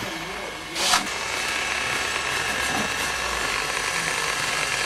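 A knock about a second in, then a steady mechanical running noise, with voices faintly behind it.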